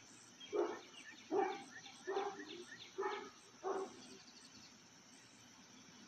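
A dog barking five times in quick succession, faint, with the barks stopping about four seconds in.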